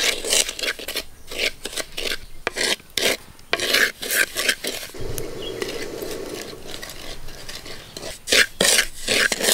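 Wooden spatula stirring dry semolina (Bombay rava) roasting in a pot, a run of quick, irregular rasping scrapes of the grains against the pot, smoother and steadier for a few seconds in the middle.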